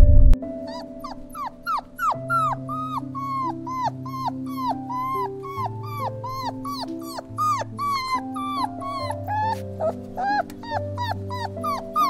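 A dog yipping and whimpering in a rapid run of short high calls, each rising then falling in pitch, about two or three a second, over background music with sustained notes.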